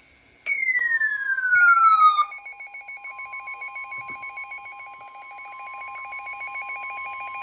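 NOAA Weather Radio's 1050 Hz Warning Alarm Tone, a steady single tone, sounding ahead of a Special Marine Warning. It starts with a falling electronic tone, and from about a second and a half in a rapid, pulsing two-tone beep from the receiving weather radio's alert sounds over it.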